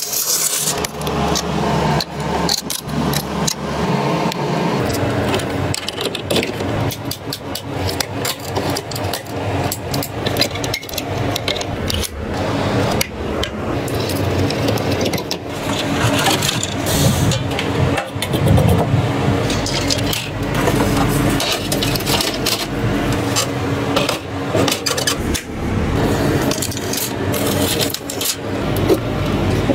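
Hands handling computer hardware: repeated clicks, knocks, scrapes and rattles of metal and plastic parts of a motherboard and a graphics card.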